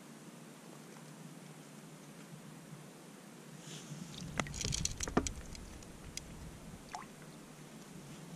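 Splashing and dripping as a smelt is hauled up out of an ice-fishing hole on a short jigging rod, with a cluster of sharp ticks and a low rumble about four to five seconds in. A few single clicks follow.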